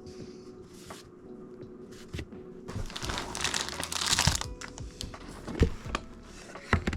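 Crinkling and rustling of something being handled for about a second and a half, then two sharp knocks.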